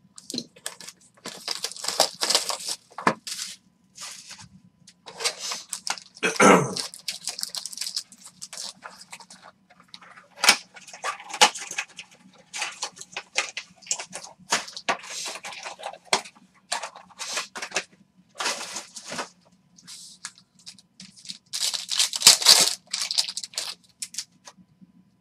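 Crinkling and tearing of a 2020 Panini XR football card pack's wrapper as it is torn open, then cards slid and shuffled in hand, in irregular scratchy bursts. The loudest crinkles come about two seconds in, around six and a half seconds, and again around twenty-two seconds.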